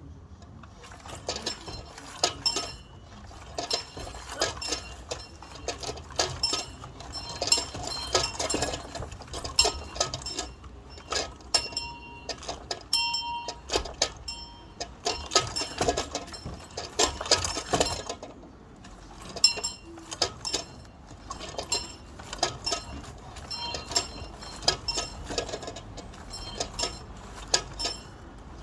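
A bell rung by pulling its rope, its clapper striking again and again in an uneven rhythm with high-pitched ringing. The ringing starts about a second in and breaks off briefly about two-thirds of the way through before it carries on.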